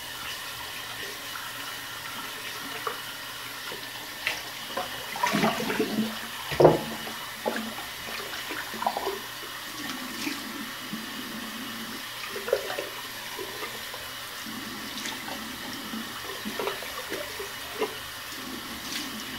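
Cold tap water running into a sink, with irregular splashes as a face is rinsed off after shaving; the splashing is busiest around five to seven seconds in.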